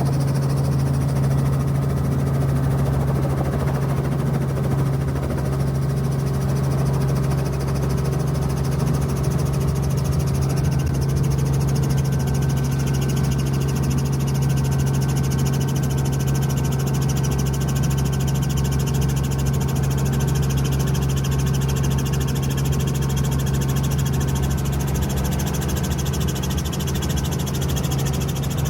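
Helicopter engine and rotor running in a steady, unbroken drone with a strong low hum.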